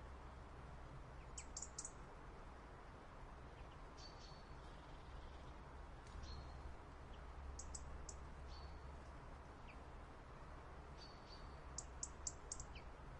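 Small songbirds chirping faintly: short, very high chirps in quick clusters of three to five, three times, with single slightly lower notes scattered between.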